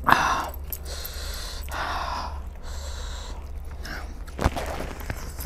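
A man breathing loudly through his mouth while eating with his hands: a sharp gasp right at the start, then breathy hisses about two and three seconds in, and a sharp wet smack about four and a half seconds in. A steady low hum runs underneath.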